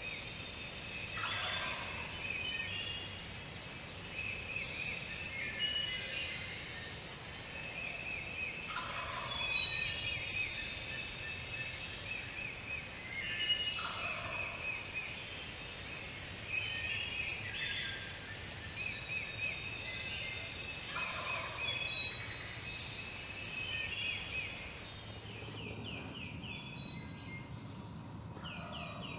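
Wild turkey gobbler gobbling about six times, roughly every four seconds, over a dawn chorus of songbirds.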